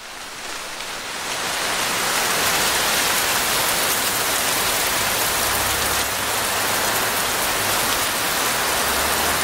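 Rain falling steadily onto rainforest leaves, an even hiss that builds over the first couple of seconds and then holds.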